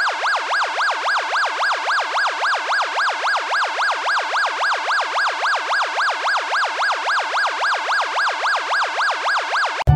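Electronic siren with a fast warble, its pitch sweeping up and down evenly about four times a second. It cuts off suddenly near the end.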